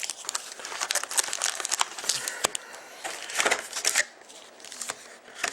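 Plastic wrappers of trading card packs crinkling and rustling as the packs are handled and taken out of the box. The crinkling is dense for about four seconds, then thins to a few scattered crackles.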